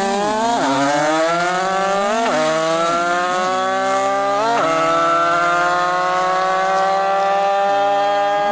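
Two-stroke moped engines at full throttle, accelerating from a drag-race launch. The revs climb and drop back at gear changes about half a second, two seconds and four and a half seconds in, then hold high and keep rising slowly as the mopeds pull away.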